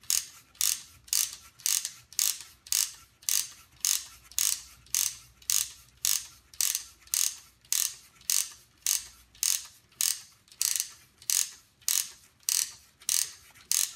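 The wooden winding mechanism of an Ugears Truck UGM-11 mechanical model clicking as its rubber-band motor is wound up by hand, a sharp ratchet click about twice a second.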